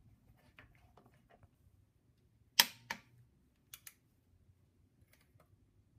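Torque wrench tightening the oil filter adapter's T60 Torx bolt to 50 ft-lbs: a sharp click about two and a half seconds in, then a second just after, as the set torque is reached, with a few fainter ticks around it.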